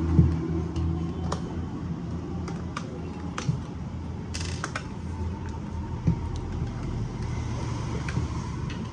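Scattered small clicks and scrapes of pliers working the side locking pins out of a laser toner cartridge's plastic housing, with a brief rustling scrape about four and a half seconds in, over a steady low background hum.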